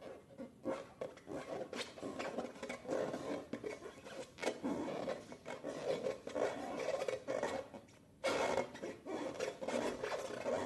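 Slime being squeezed and worked by hand: an irregular, crackly rubbing noise full of small clicks, breaking off briefly about eight seconds in.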